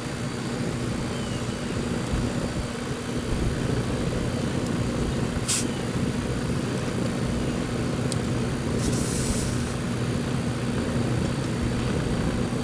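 Central air conditioner condenser running steadily: compressor hum under the whoosh of the condenser fan, now turning on a newly fitted fan motor. A sharp click about halfway through and a brief hiss a few seconds later.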